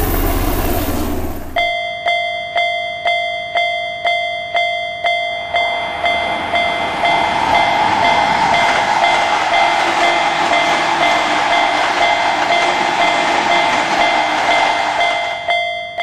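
A low helicopter whir for the first second and a half. Then a Japanese level-crossing warning bell starts its ringing 'kan-kan' at about two strikes a second. From about six seconds in, a passing train's steady running noise spreads over the bell and lasts until near the end.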